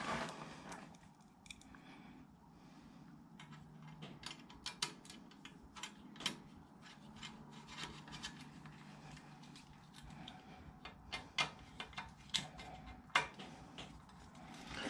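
Faint, irregular light clicks and snips of hand tools and small plastic electrical fittings being worked while wiring up sockets, growing busier from about four seconds in.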